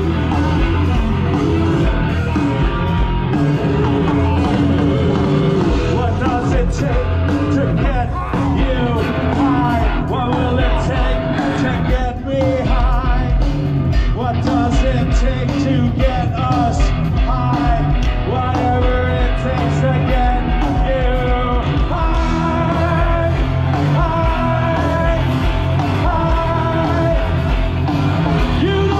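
Live rock band playing through a festival PA, with a singer over electric guitars, bass and drums, loud and unbroken.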